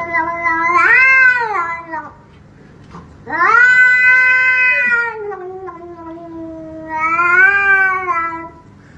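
A cat yowling as a hand reaches over to pet it, in long drawn-out calls that rise and fall in pitch. There are three calls, and the middle one is the longest, sinking lower toward its end.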